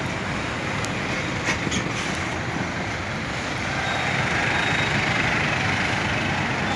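Road traffic on a busy street: a steady wash of passing cars and pickups, growing louder about four seconds in as vehicles go by.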